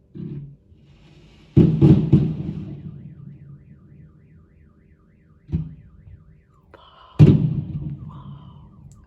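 Fireworks salute: a series of loud booms, each with a long echoing tail. Faint repeating electronic tones, like a car alarm going off, sound between the bursts.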